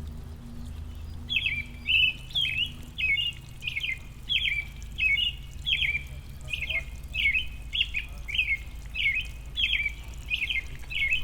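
A songbird calling with quick repeated chirps, about two a second, starting about a second in, over a steady low rumble.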